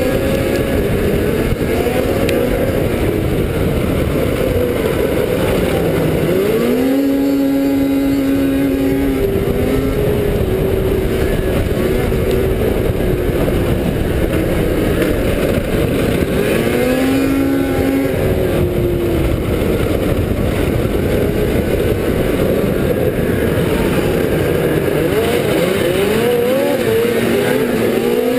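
Arctic Cat F5 Sno Pro racing snowmobile's 500cc two-stroke twin running hard at high revs. Its pitch falls and climbs again as the throttle is eased and reopened through turns, about seven, seventeen and twenty-six seconds in, over a steady rush of wind and track noise.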